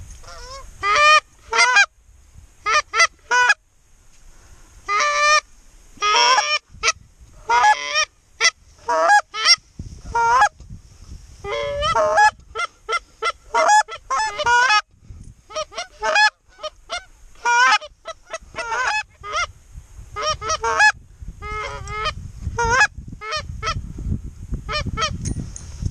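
Goose honking: many short, loud honks in quick runs with short gaps between them.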